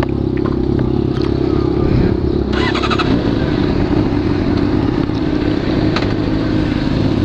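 Honda CBR sport bike's engine idling steadily, heard from the rider's seat.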